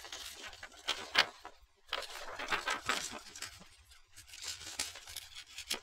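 Paper rustling as the pages of a model kit's instruction manual are handled and turned, with a few sharp crackles among them.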